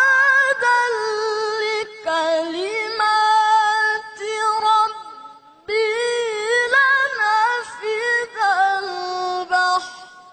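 A boy's high voice reciting the Quran in the melodic tilawah style: long held notes with wavering ornaments, broken by a brief pause for breath about five seconds in.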